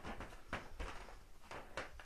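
A few short scratchy rustles and light knocks: a kitten's claws and paws scrabbling on a carpet-covered cat tree as it plays.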